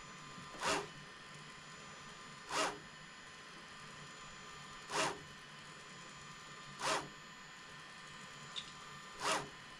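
Bambu Lab A1 Mini 3D printer running its calibration: five short zipping rasps from its stepper motors, about two seconds apart, as the toolhead makes quick moves, over a faint steady hum.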